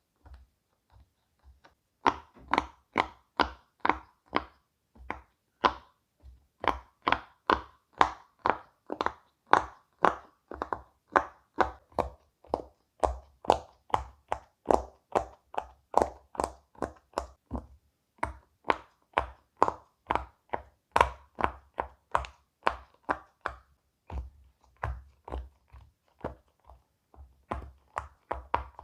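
Silicone pop-it fidget toy bubbles being pressed one after another, a steady run of sharp pops about two or three a second. The first few are faint, and they grow louder about two seconds in.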